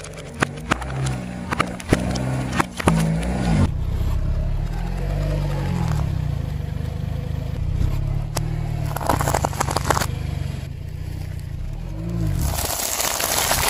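A car tyre rolls over a row of aluminium soda cans, which give sharp cracks and pops as they burst, over the low, steady running of the car's engine. After a cut the tyre rolls over a donut, then over a pile of peanuts in their shells, which crunch and crackle under it.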